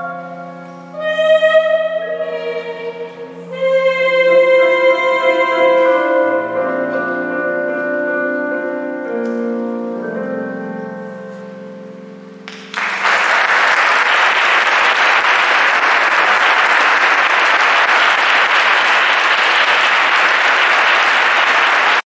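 A women's choir with piano sings the closing phrases of a piece, the last held chord fading away. About thirteen seconds in, the audience breaks into steady applause.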